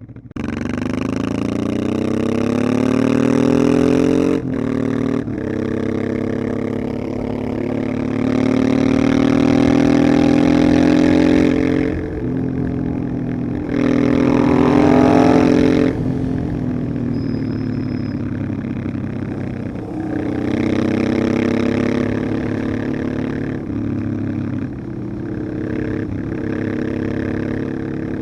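Honda Transalp XL600V's V-twin engine pulling under load, its pitch climbing steadily and then dropping in short breaks, as at gear changes, about four seconds in and again later. The climbs repeat several times, with easing off in between.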